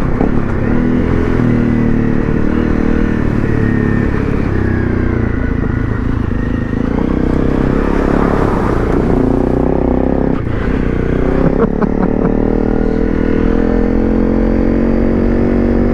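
Honda CRF250 Rally's single-cylinder four-stroke engine running under way, its pitch rising and falling with throttle and gear changes and climbing steadily near the end.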